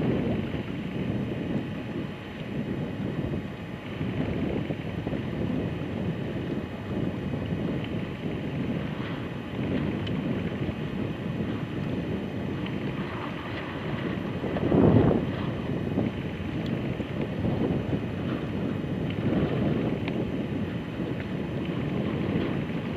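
Wind buffeting the microphone, a low gusting rumble that swells and fades, with one strong gust about two-thirds of the way through.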